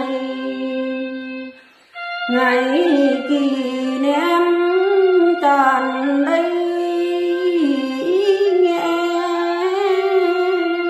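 A woman singing solo, holding long notes that bend up and down in pitch, with a short pause for breath about two seconds in.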